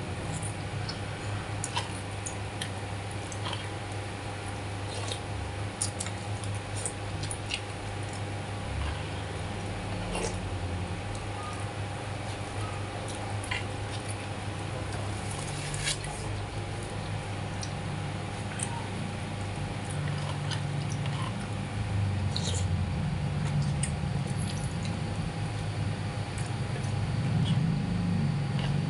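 Eating with a metal spoon from a plastic bowl: scattered light clicks and taps of the spoon against the bowl, over a steady low hum. A low, wavering sound grows louder near the end.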